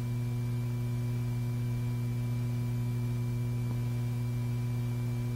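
Steady electrical hum with a fainter high whine above it, unchanging throughout: background hum on an old film soundtrack.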